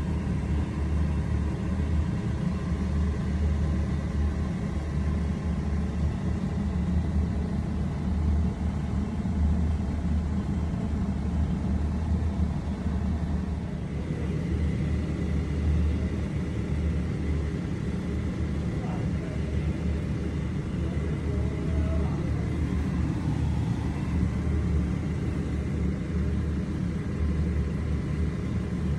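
Steady low rumble throughout, with a faint thin high tone above it.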